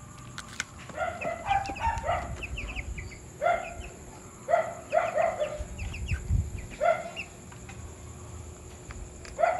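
Thirteen-day-old broiler chicks calling, short cheeps repeated in clusters of one to three, about nine in all, with a couple of low, muffled rustles in between.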